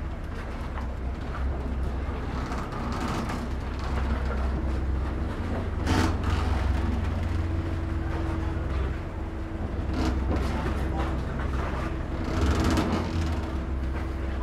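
Diesel engine of a Venetian waterbus (vaporetto) rumbling low and steady while the boat sits at the landing stage. A steady hum joins about five seconds in, and there are a few brief knocks.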